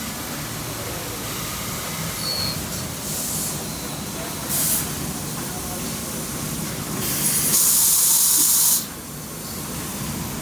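NC lathe running, a steady machine noise broken by several short bursts of hissing spray, the longest and loudest from about seven to nearly nine seconds in.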